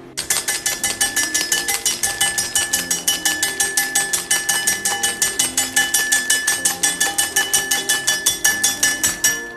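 Hard-candy cutter chopping rods of pulled lime candy into small pieces: a rapid, even run of sharp chopping clicks, about seven a second, over a faint steady ringing.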